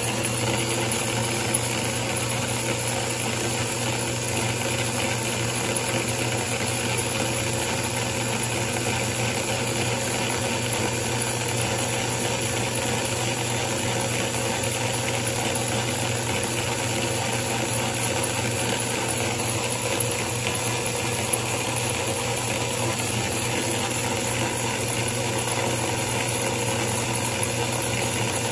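Small electric motor of the power tool that holds the slug in its chuck, running steadily to spin it, with a constant hum and a few faint ticks.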